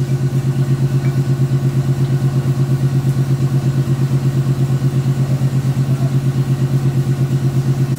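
A motor running with a steady low hum that pulses evenly, about eight times a second.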